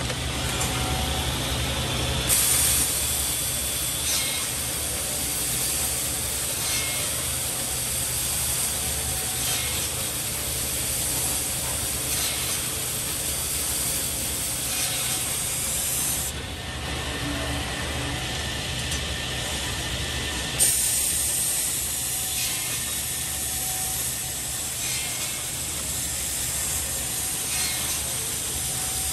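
Woodmaster square-bracket cutting and drilling machine running, with a steady low motor hum and faint regular clicks every two to three seconds from its pneumatic clamps and feed. A high hiss starts suddenly a couple of seconds in, drops out for a few seconds past the middle, then comes back sharply.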